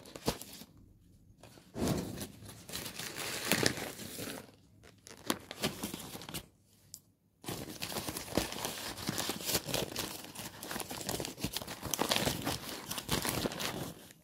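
Paper shopping bags and plastic packaging crinkling and rustling as they are handled, in several bouts broken by brief pauses.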